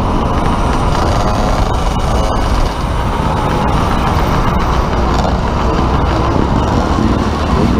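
Steady rush of wind over a helmet-mounted camera while riding a motorcycle at speed, mixed with the bike's engine running.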